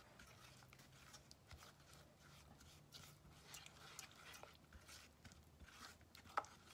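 Faint scraping and ticking of a silicone spatula stirring brown sugar into melted cane sugar in a small nonstick saucepan, with one sharp tap near the end.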